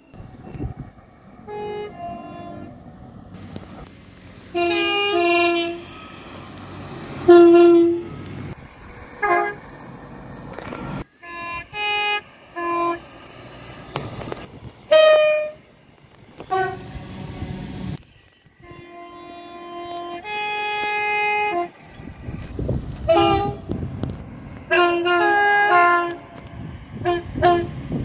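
Passenger train horns sounding many short blasts in quick succession, alternating between a lower and a higher tone, some cut off abruptly. Between the blasts a train's low running rumble is heard.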